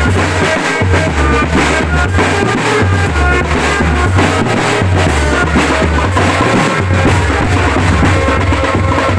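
Drum band music: bass and snare drums beating steadily under a melody of short notes and a sustained bass line.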